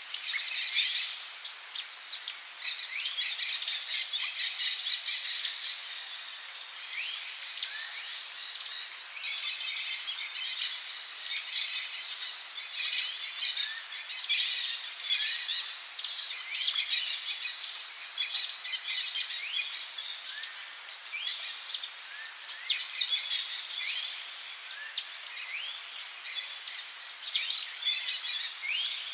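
Rainforest ambience: a steady high insect drone under many birds chirping and calling. Two short, loud, high calls stand out about four and five seconds in.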